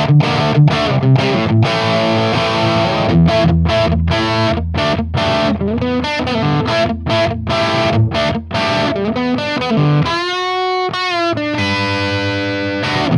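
Distorted electric guitar through the blue channel of a Mooer Brown Sound 3 preamp pedal with its gain all the way up, playing a riff of short chopped chords and chugs. About ten seconds in, a held note is bent with vibrato, then the chords resume. The tone is a crunch, short of high-gain saturation.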